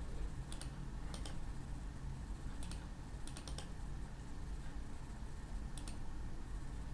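Computer mouse clicking: scattered sharp clicks, several in quick pairs, over a steady low hum.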